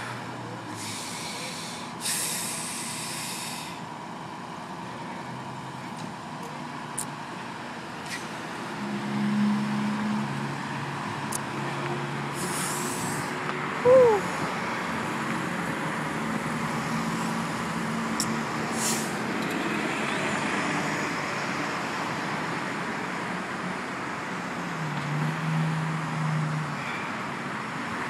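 Road traffic: cars passing one after another, their engine and tyre noise swelling and fading, with short hisses of air from a heavy vehicle's air brakes. About halfway through, a loud brief squeal drops in pitch.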